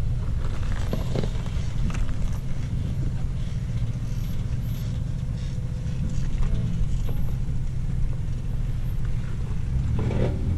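Off-road 4x4 engine running at low revs, a steady low rumble, with a few light knocks in the first couple of seconds.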